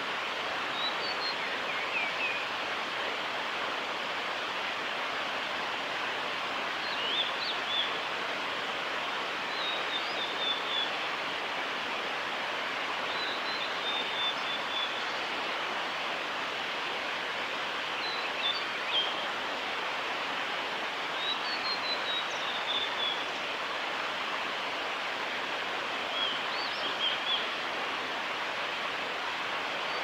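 Male blue-and-white flycatcher singing short, high, warbling phrases every few seconds. Behind it runs a steady rushing background noise that is louder overall than the song.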